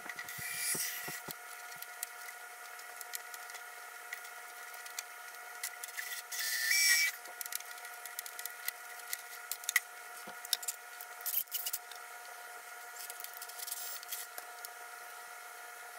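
Two short bursts of a cordless drill boring a pilot hole through the wooden wing structure, one near the start and a louder one about six and a half seconds in, amid scattered clicks and taps of tools and parts being handled, over a faint steady hum.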